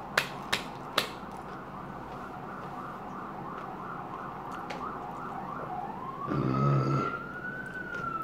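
Distant ambulance siren going in a fast, rapid yelp, then changing about six seconds in to a slow wail that rises and then slowly falls. Three sharp hand claps sound in the first second, and a brief louder low blast comes near the change.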